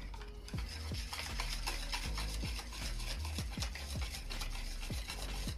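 Metal wire whisk stirring flour into wet batter in a mixing bowl: a steady scraping, rubbing swish. A low, regular beat runs faintly underneath.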